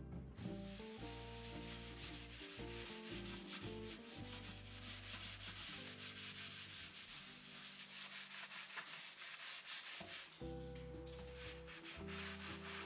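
A sponge scrubbing a stainless steel sink basin in rapid back-and-forth strokes, a dense scratchy rubbing that eases off about ten seconds in.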